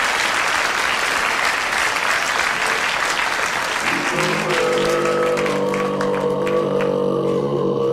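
Audience applauding, the clapping thinning out about halfway through. About four seconds in, a steady held musical chord or drone comes in and carries on.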